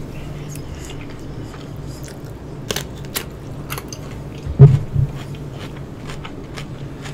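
Close-miked chewing and wet mouth clicks of someone eating seafood, with a sharp crunching bite about four and a half seconds in as a slice of cucumber is bitten.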